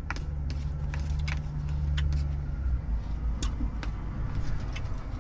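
Low, steady rumble of a vehicle engine, with a deeper hum for the first couple of seconds that then eases off. Light clicks of a fork against a paper plate sound now and then over it.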